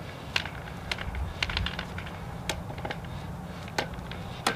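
Scattered light clicks and ticks, about eight at uneven intervals, as the hand pump's well head is screwed by hand onto the pump rod.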